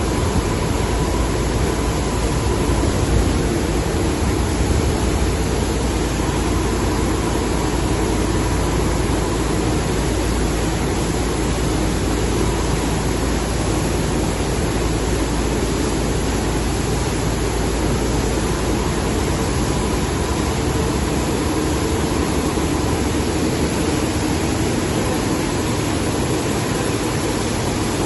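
Steady din of a Tetra Pak carton-filling and packaging line running at speed, a dense even machine noise with a faint steady whine. The deepest rumble thins out about two-thirds of the way through.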